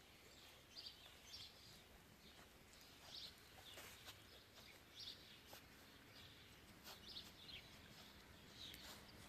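Near silence, with faint short high-pitched chirps or snuffles about once a second and a few soft clicks.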